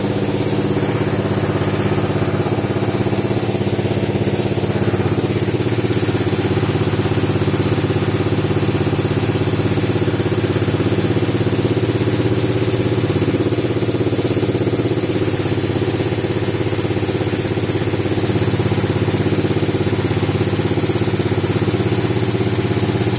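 Samsung WF604E0W0W washing machine on its final spin at about 1000 RPM: a loud, steady drum and motor hum with a fast, even rattle as the machine shakes violently, described as shaking like an absolute earthquake.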